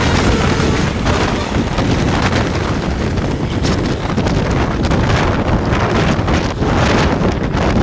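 Loud wind buffeting the microphone in rough gusts, over roadside traffic noise; no horn melody stands out.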